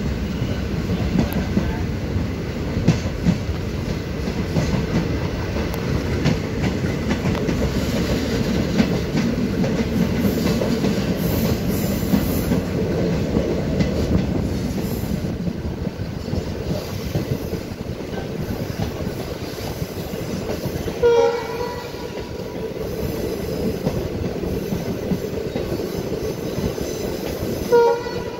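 Steady running rumble and rail noise of a train hauled by an ALCO WDG-3A diesel locomotive. The locomotive's horn gives two short blasts, one about two-thirds of the way through and one at the very end.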